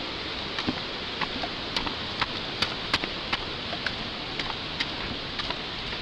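Steady rushing of a waterfall, with irregular sharp clicks, about two to three a second, from a Pembroke Welsh corgi's claws tapping on the steps as it walks.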